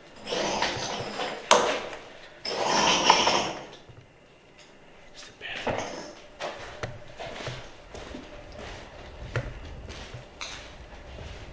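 A door scraping twice as it is pushed open, with a sharp knock about a second and a half in, then scattered footsteps.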